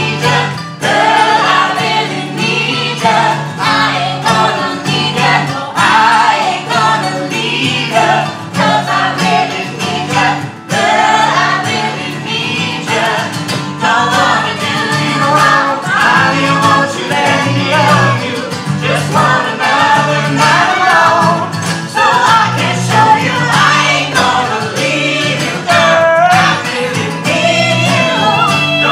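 A mixed group of male and female voices singing together in harmony, accompanied by acoustic guitars.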